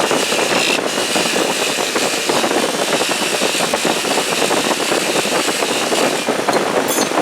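Bench buffer running with an 8-inch stitched fiber buffing wheel, a loud steady coarse rushing noise, with a thin high whine in the first second.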